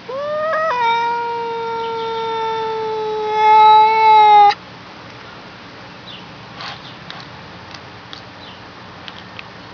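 A cat giving one long, drawn-out meow of about four seconds. It rises in pitch at the start, holds steady, grows louder near the end, then breaks off abruptly. A few faint clicks follow.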